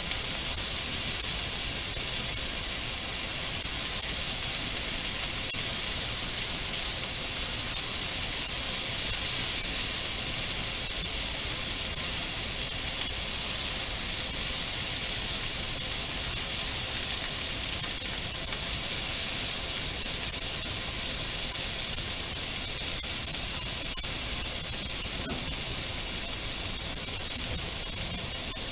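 Pork and vegetables sizzling in a hot frying pan during a stir-fry: a steady, high hiss that eases off slightly toward the end.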